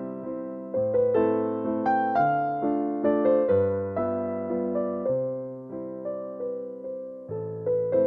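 Background piano music: single notes and chords struck and left to fade, a new one every half second to a second.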